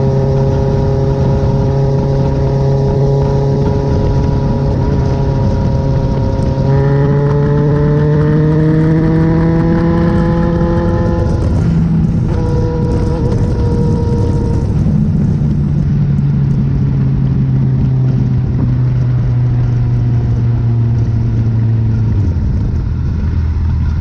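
Motorcycle engine running at highway speed over wind and road noise. About seven seconds in, the engine note steps up and climbs as the bike accelerates, drops back at a gear change around twelve seconds in, then holds steady and falls away near the end as the throttle comes off.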